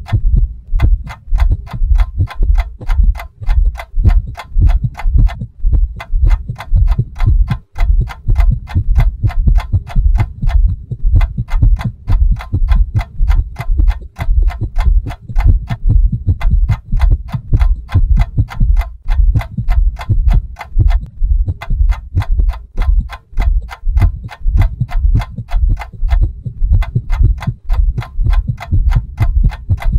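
Soundtrack of steady, fast ticking, about four ticks a second, over a deep thudding pulse.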